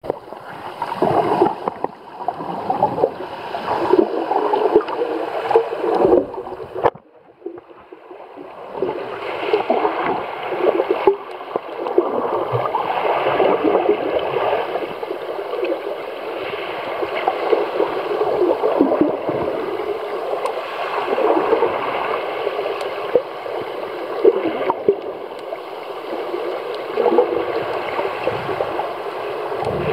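Shallow sea water heard through a submerged camera: a steady, muffled rushing and gurgling that drops away briefly about seven seconds in.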